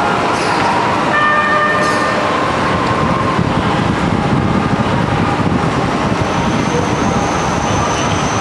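A trumpet playing a few held notes, then stopping after about three seconds, over a steady rumble of traffic noise that carries on alone. A thin, steady high whine comes in about two-thirds of the way through.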